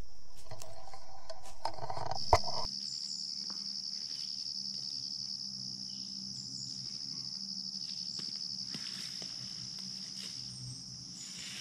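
Insects trilling in a steady, high-pitched chorus. The first couple of seconds hold rustling handling noise that ends in a sharp click.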